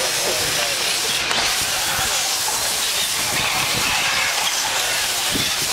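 Several 1/8-scale nitro RC cars' small engines racing around the track, a high-pitched whine rising and falling as they rev and lift off, over a steady hiss.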